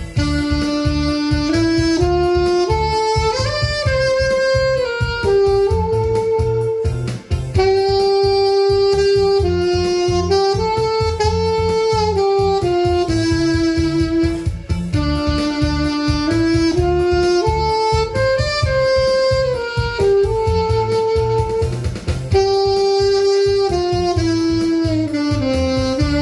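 Saxophone playing a slow, smooth melody of long held notes over a backing track with a steady beat.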